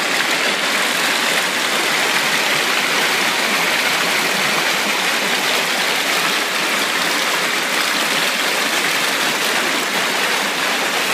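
Steady rushing of shallow stream water flowing over rocks.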